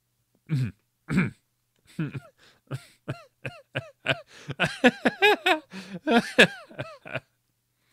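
A man's voice making a run of short non-word vocal sounds: a couple of isolated bursts, then quick repeated syllables that rise and fall in pitch, thickest about two thirds of the way through, breaking off shortly before the end.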